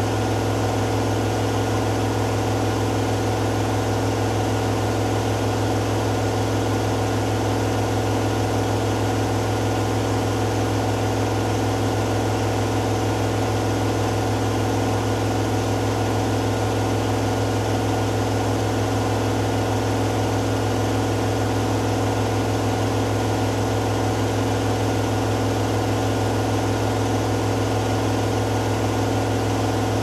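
Hoover Dynamic Next front-loading washing machine spinning its drum at high speed in the final spin of a cotton cycle: a steady motor hum with a fixed whine above it, unchanging throughout.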